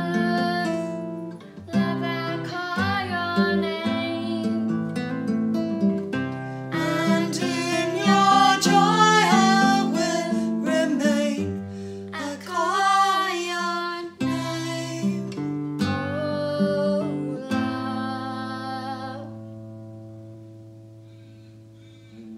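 A girl and a woman sing a slow worship song to a nylon-string classical guitar that the girl strums and picks. Near the end the singing stops and the last guitar chord rings on and fades away.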